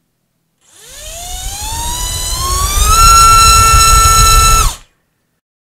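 Hyperlite V3 2206 2300kv brushless FPV race motor spinning a RaceKraft 5045 tri-blade propeller on a thrust stand. Its whine rises in pitch as it spools up to full throttle, holds steady for about a second and a half, then cuts off suddenly.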